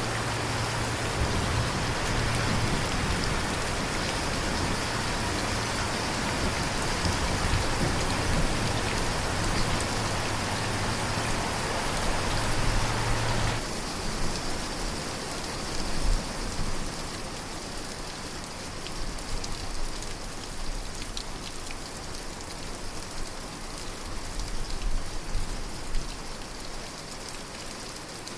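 Steady rain falling on a surface, a dense hiss flecked with single drops ticking. About halfway through it changes suddenly to a lighter, thinner rain with less body.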